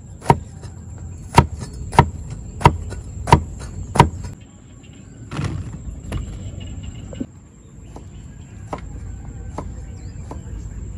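Cleaver chopping a peeled vegetable on a thick wooden chopping block: six sharp chops about two-thirds of a second apart, then a few fainter knocks later on.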